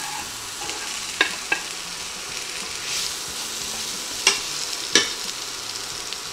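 Sliced onions and green bell peppers sizzling in hot butter and oil in a nonstick pan, with a wooden spatula knocking sharply against the pan several times as they are stirred.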